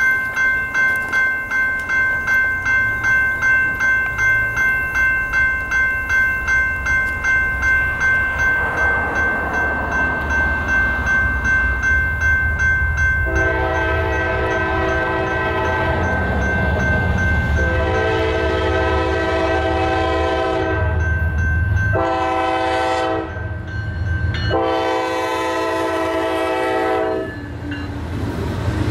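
Grade-crossing warning bell ringing about twice a second while a freight train approaches with a rising low rumble. Then the lead diesel locomotive's multi-chime air horn sounds the crossing signal, long, long, short, long, with the last blast ending just as the locomotive reaches the crossing.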